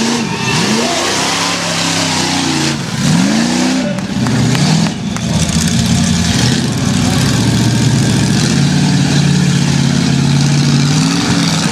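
A lifted mud-bog pickup truck's engine revving: several quick rises and falls in the first few seconds, then held high and steady under load as the truck climbs over boulders.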